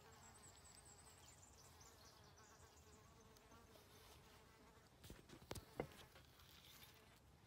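Near silence, with the faint steady buzz of a fly for the first few seconds, then a few soft taps of a knife against a wooden chopping board about five to six seconds in.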